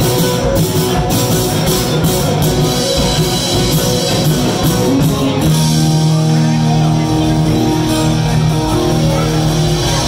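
Live rock band playing: electric guitar, bass and drums. A steady beat of drum hits runs through the first half, then the band holds long notes from about halfway.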